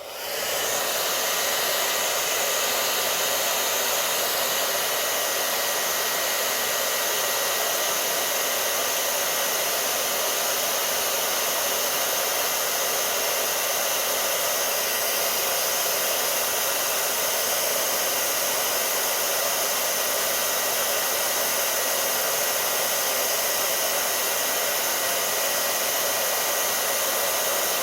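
Handheld hair dryer running steadily: an even rush of air with a faint steady motor whine. It is switched on at the start and cuts off at the end. Its hot air is aimed at a heat detector to trip it.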